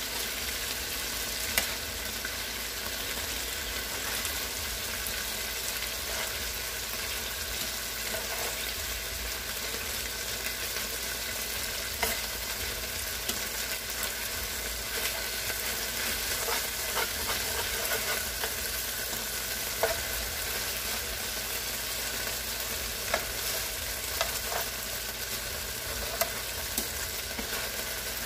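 Chicken fat and juices sizzling steadily in a hot pot after searing, with a few sharp clicks now and then.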